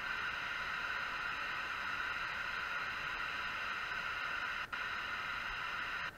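P-SB7 spirit box, a radio-sweeping ghost box, giving out steady hissing static. It drops out for an instant a little before five seconds in and cuts off sharply just before the end.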